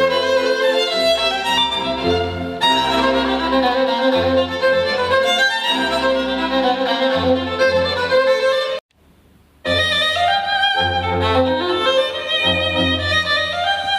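Violin music over a pulsing bass, played back through a portable Bluetooth speaker. It cuts out for under a second about nine seconds in, then resumes.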